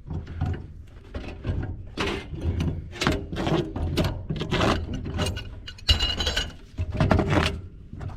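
Wrench working on a gas line fitting: a run of metal clicks and scrapes, about two a second, with a sharper metallic clank about six seconds in.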